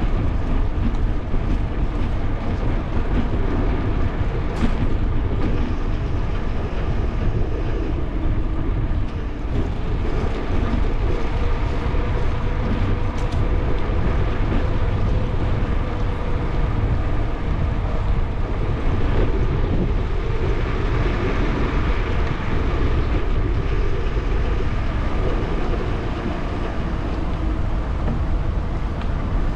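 Steady wind noise buffeting the microphone of a bicycle-mounted camera while riding, with tyre noise on the pavement and street traffic alongside.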